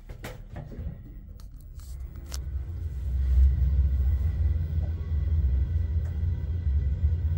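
LUTZ passenger elevator: a few clicks, then about two and a half seconds in the drive starts and the cab travels upward with a steady low rumble and a faint high whine.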